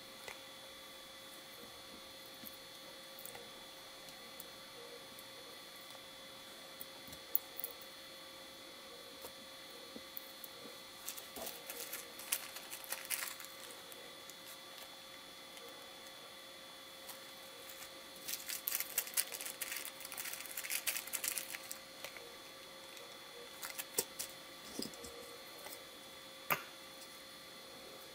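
Hands handling a small plastic bag of screws and small plastic kit parts: soft crinkling and light clicks, in two spells of rustling and a few separate clicks, over a steady electrical hum.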